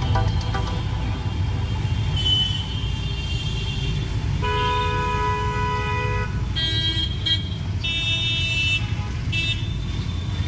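Night road traffic: a steady rumble of engines and tyres, with vehicle horns honking over it. There is a short toot about two seconds in, then one long horn blast of nearly two seconds around the middle, then several shorter, higher-pitched toots after it.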